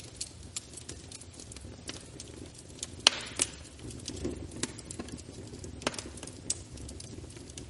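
Wood fire burning in a fireplace: a steady low rumble of flames with irregular sharp crackles and pops, the loudest pair of pops about three seconds in.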